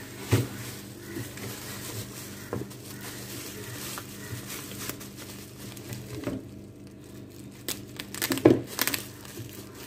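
Plastic wrapping and bubble wrap crinkling and rustling as hands unwrap a fishing rod, with irregular sharper crackles, the loudest about half a second in and again near the end.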